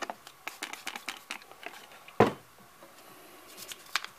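Small clicks and taps of plastic coffee-machine brew-group parts being handled and sprayed with a trigger spray bottle of cleaning chemical over a tub of water. There is one louder sharp sound about two seconds in.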